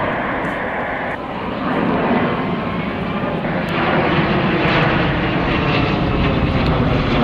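Jet noise from the Embraer KC-390's twin IAE V2500 turbofan engines as the transport flies low overhead in a banking pass. The sound swells about two seconds in and again around four seconds as the aircraft comes closer.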